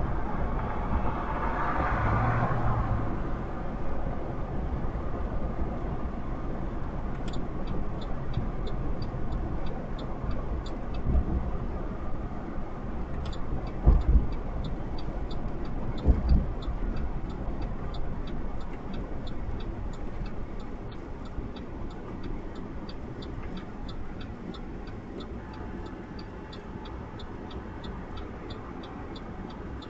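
Steady low engine rumble, with a few heavy thuds about halfway through. A regular high ticking, about two ticks a second, joins a few seconds in and keeps going.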